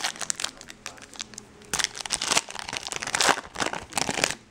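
Foil wrapper of a 2012 Bowman Draft Picks and Prospects card pack being torn open and crinkled off the cards by hand, in a run of irregular crackly rustles, loudest a couple of seconds in and again past the three-second mark.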